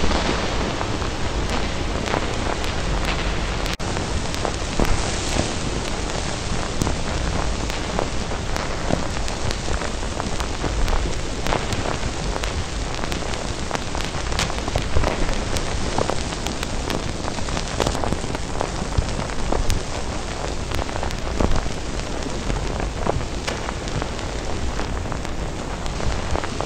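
Steady rain: a continuous hiss with many individual drops heard as sharp taps throughout.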